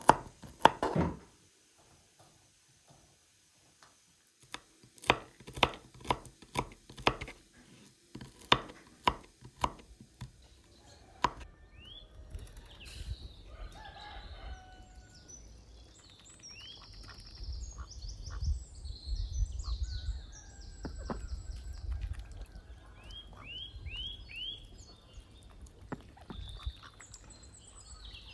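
A kitchen knife chopping walnuts on a wooden cutting board: a series of sharp knocks, a few a second, for the first ten seconds. Then birds calling with short chirps over a low steady rumble.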